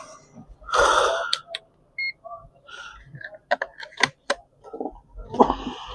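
Sharp clicks and taps of a phone and tools being handled on a repair bench, with short bursts of rustling noise and one brief high beep about two seconds in.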